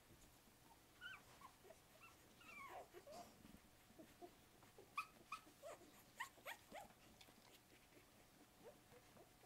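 Newborn English springer spaniel puppies squeaking and whimpering faintly while nursing: a string of short, high squeaks, many falling in pitch, thickest in the middle of the stretch.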